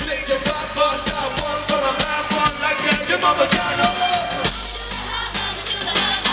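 Upbeat pop-rap track with a steady drum beat and a sung vocal line; the vocal drops out about four seconds in, leaving the beat and bass.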